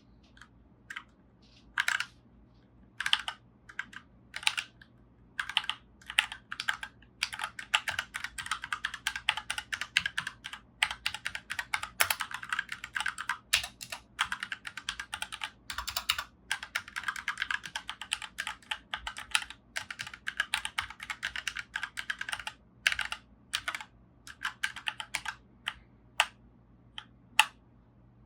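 Typing on a Royal Kludge mechanical keyboard: a few separate keystrokes, then fast continuous typing from about seven seconds in until about twenty-two seconds in, then slower scattered keystrokes again.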